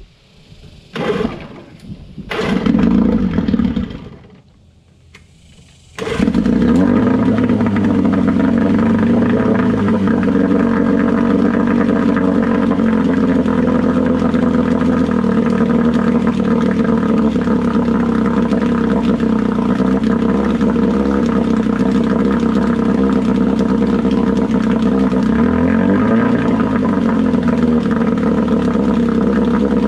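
1972 Johnson 9.5 hp two-stroke outboard being started in a test tank: two brief bursts in the first few seconds, then it catches about six seconds in and runs steadily, its speed shifting briefly near the end, with the propeller churning the water in the tank.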